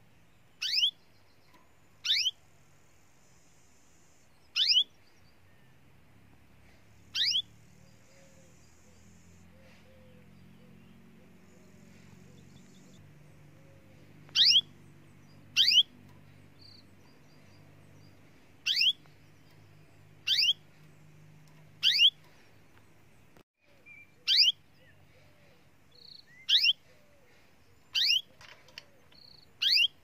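Canary giving sharp single call notes, each a quick high note dropping in pitch. There are about a dozen of them, spaced one to a few seconds apart, with a longer pause in the middle.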